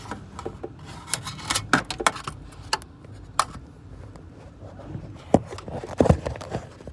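Clutch pedal assembly of a 1989 Toyota pickup clicking and knocking irregularly as it is moved by hand, its mounting bracket loose, with the loudest knocks near the end.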